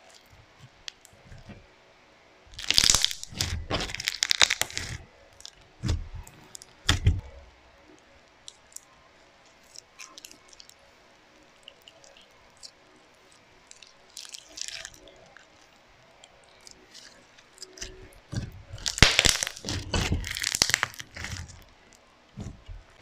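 Clear slime packed with foam beads being squeezed and pressed, giving crunchy crackling and popping in bursts of a few seconds, with quiet stretches between.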